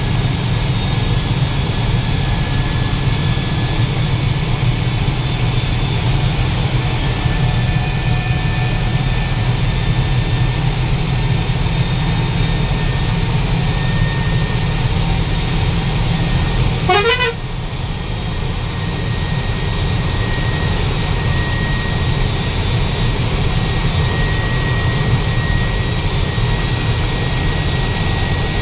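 Steady low rumble of a sleeper bus on the road, engine and road noise. A brief sound cuts in about two-thirds of the way through, and the rumble is slightly quieter after it.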